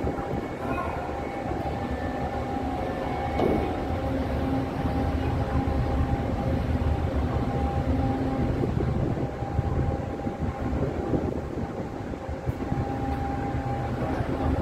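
Large car ferry's engines rumbling steadily as the ship comes in to dock, with a steady droning hum over the low rumble.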